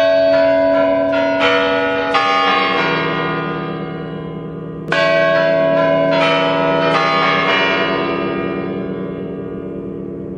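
Bells struck in a quick run of several notes, each ringing on and slowly fading, then a second run about five seconds in.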